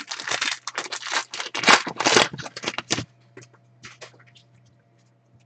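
Trading cards being handled: a quick run of dry scraping and rustling for about three seconds, then only a few faint taps.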